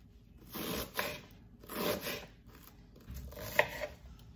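Kitchen knife scraping and sliding across a cutting board over freshly chopped red onion, three drawn-out strokes, with one sharp knock of the blade on the board about three and a half seconds in.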